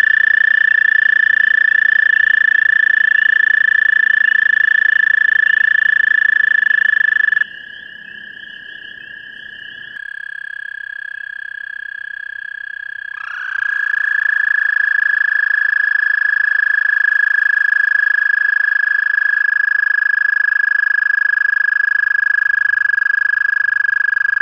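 American toads trilling: a long, steady, high musical trill stops about seven seconds in and a fainter trill from another toad carries on. A new loud trill swells in a little past halfway.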